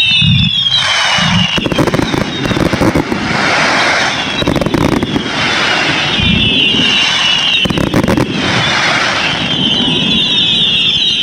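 Fireworks going off in a rapid barrage of crackling pops, coming in several waves, from about a second in until near the end.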